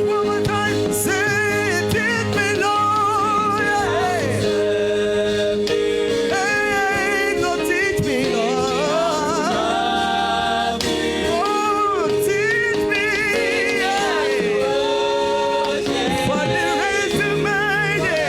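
Gospel song performed live: singing with long, wavering vibrato notes over steady held accompaniment chords.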